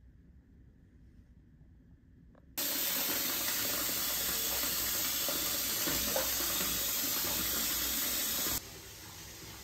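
Water running from a bathtub tap into a filling tub: a steady rushing pour that starts suddenly about two and a half seconds in and drops to a quieter level near the end. Before it there is only faint room tone.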